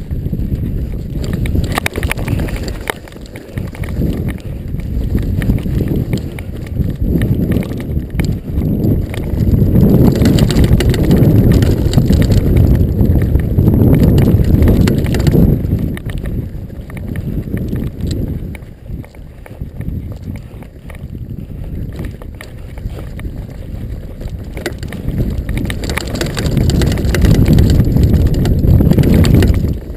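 Wind buffeting an action camera's microphone as a mountain bike rolls down a dry dirt and stone trail, with the tyres running over the ground and the bike rattling over bumps. The rumble swells loudest for several seconds about a third of the way in and again near the end.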